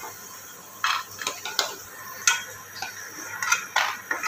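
A steel spoon scrapes and clinks against a non-stick kadhai and a steel plate in about eight short strokes, as roasted sandge are scooped out of the hot oil. A light sizzle of oil sounds underneath.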